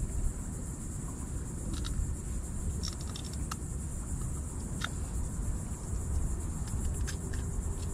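Wind rumbling on the microphone over a steady high-pitched insect drone, with a few faint clicks scattered through.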